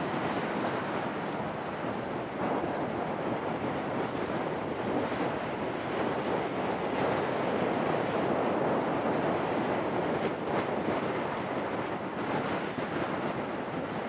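Gusty wind of around 20 mph blowing across the microphone: a steady rushing noise that swells and eases a little.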